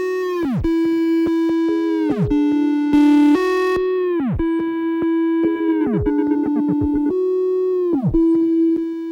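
Electronic synthesizer noise music: held buzzy tones that repeatedly dive steeply downward in pitch about every two seconds, with a brief louder burst about three seconds in.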